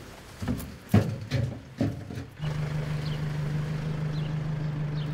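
A few short knocks and clicks in the first couple of seconds. Then a minibus engine starts a steady low hum as the van drives off over snowy ground.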